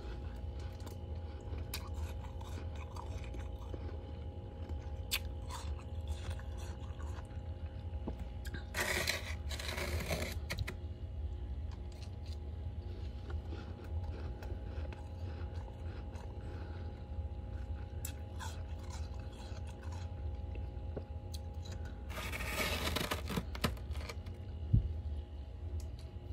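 Freezer frost crunching: scattered small crunches, with two longer bouts of noisy crunching about nine and twenty-two seconds in, over a steady low hum. A single sharp click near the end.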